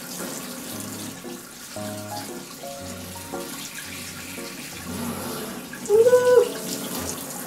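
Water running from a handheld shower head onto a wet Maltese puppy's coat, with light background music of simple stepped notes over a bass line.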